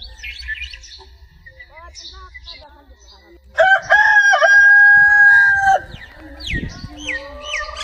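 A rooster crowing once, a long held crow of about two seconds starting a little past three seconds in. Short chirping calls from other birds come before and after it.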